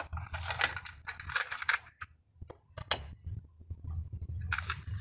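Plastic clicks and rattles of a cassette tape being taken out of the open cassette door of an Aiwa CSD-ES340 boombox. A sharp snap about three seconds in is the door being pushed shut, over a steady low hum.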